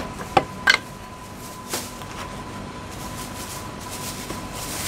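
A few sharp knocks of a cleaver on a wooden chopping block in the first second, one more a second later, then a steady background hum with a faint constant tone.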